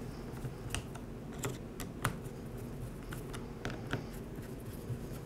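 A handful of light, irregular clicks and taps: a screwdriver and fingers working screws into the plastic throttle handle housing of a Ryobi string trimmer.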